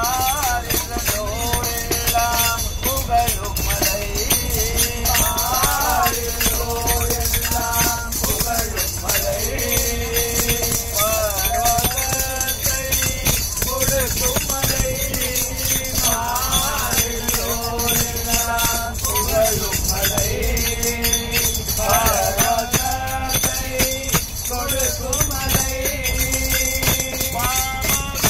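Ayyappa bhajan sung by a group of devotees, a devotional song with a bending, ornamented melody, over a steady rhythm of rattling, jingling hand percussion. A low steady rumble runs underneath from the train compartment.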